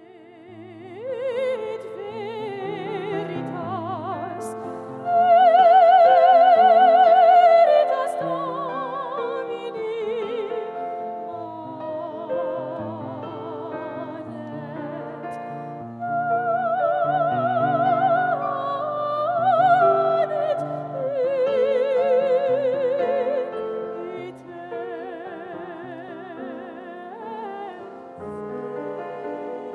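Music: an operatic solo voice singing long notes with a wide vibrato over a sustained instrumental accompaniment. It swells loudest a few seconds in.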